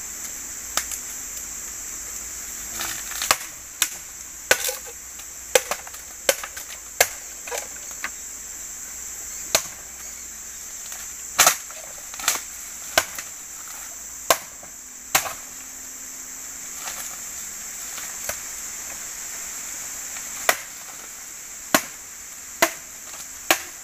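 Machete chopping into green bamboo stems: irregular sharp strikes, about twenty in all, some in quick pairs, with a steady high insect drone behind them.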